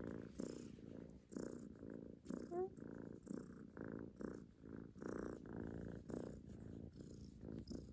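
Young ginger-and-white kitten purring steadily while being stroked on a lap, the purr swelling and fading about twice a second.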